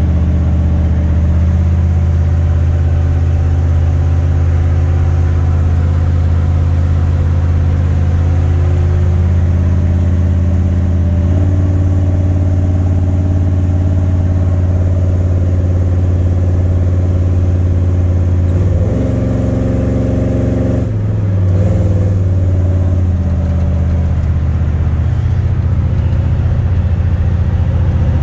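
Pickup truck engine and exhaust heard from inside the cab while driving, a loud steady drone. The engine note steps up about eleven seconds in, then changes again around nineteen to twenty-one seconds with a brief dip before settling.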